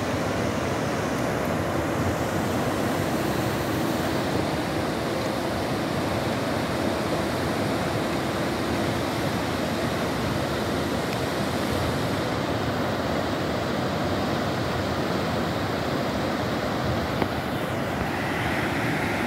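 The Ewaso Nyiro River in flood, its brown water roaring as a steady, unbroken rush of turbulent water.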